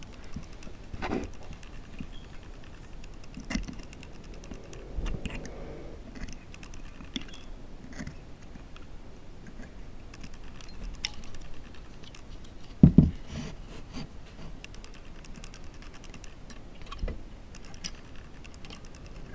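Small, irregular clicks and taps of a metal loom hook lifting stitches over the pegs of a knitting loom, with one louder knock about 13 seconds in.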